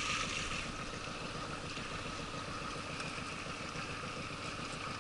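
Boat outboard motor running steadily, a constant drone with a faint steady whine.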